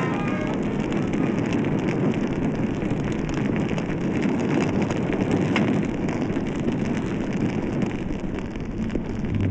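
Soundtrack effect of a blaze or explosion: a dense, steady rushing noise with scattered crackles, easing a little near the end.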